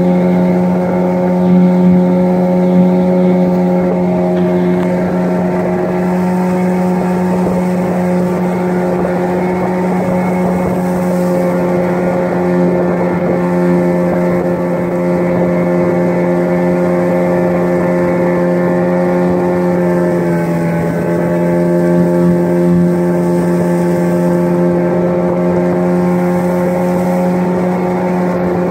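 Outboard motor pushing a small open boat along, running steadily at cruising speed. About two-thirds of the way through, its pitch dips briefly and then picks back up.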